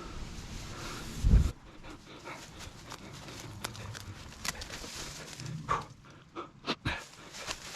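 A dog moving about and breathing, with a heavy thump about a second in and a few short sharp sounds near the end.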